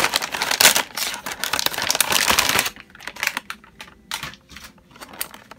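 Plastic toy bag crinkling and rustling as it is pulled open. About halfway through this gives way to quieter, scattered light clicks and taps of the plastic blister pack inside being handled.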